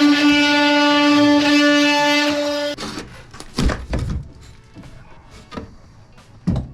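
Power saw running at a steady, high-pitched whine, shutting off abruptly about three seconds in, followed by a few sharp knocks and clatters.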